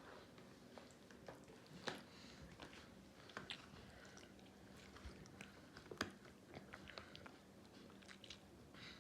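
Babies chewing and mouthing finger foods: quiet, scattered small wet clicks and smacks, two of them louder about two and six seconds in.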